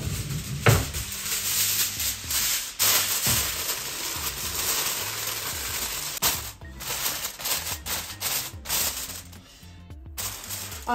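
Aluminium foil crinkling and crackling as it is pulled over a food tray and crimped down around it, in quick irregular rustles and crackles. Faint background music underneath.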